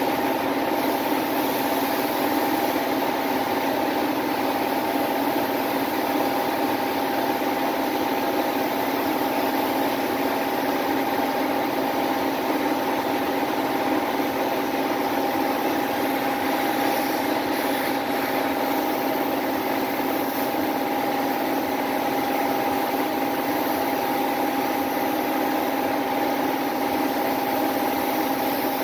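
Paint-shop machinery running with a constant hum, under the steady hiss of a compressed-air gravity-feed spray gun laying down automotive basecoat.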